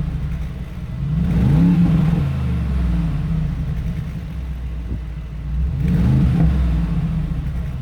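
2019 Mercedes-AMG G63's twin-turbo V8 exhaust, blipped twice: the revs climb and fall back about a second in and again about six seconds in, settling to a low idle in between.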